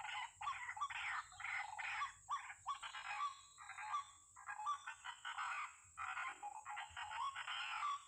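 White-breasted waterhen (ruak-ruak) giving its repeated rough 'ruak-ruak' call, about two calls a second, kept up without a real pause.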